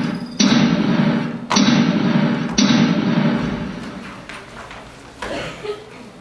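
Four heavy booming thumps about a second apart, each ringing on and fading, echoing in a large hall; after them the sound dies down to a few softer scuffs.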